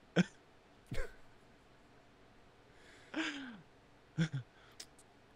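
A quiet pause in a small room, broken by a few short mouth sounds and breaths from the hosts, including a brief voiced sound falling in pitch about three seconds in, and a couple of faint clicks near the end.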